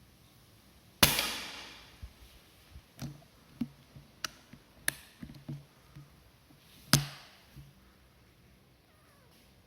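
Shrouded .177 P15 PCP air rifle firing two shots about six seconds apart, each a sharp crack with a short decaying tail. A series of lighter clicks between them as the action is cycled for the next pellet.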